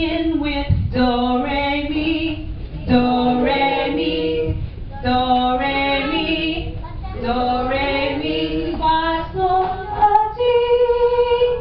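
A woman singing solo into a handheld microphone, a run of melodic phrases ending on one long held note near the end.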